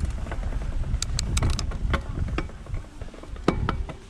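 Mountain bike riding down a rough bike-park trail: wind rumbling on the microphone, tyres rolling over dirt and rocks, and a string of sharp clicks and rattles from the bike over bumps, easing off near the end.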